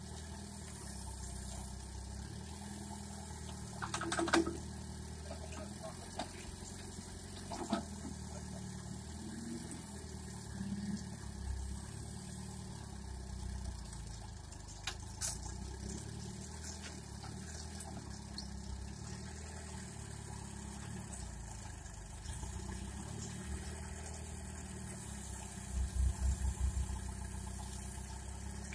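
Engine of a homemade backhoe tractor running steadily at low speed, with a few sharp knocks and clanks, the loudest about four seconds in, and a brief pulsing rise in engine sound near the end.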